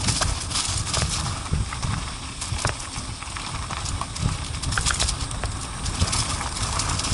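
ATV rolling over a rocky trail: a continuous low rumble with irregular knocks and clattering as the wheels and suspension hit stones.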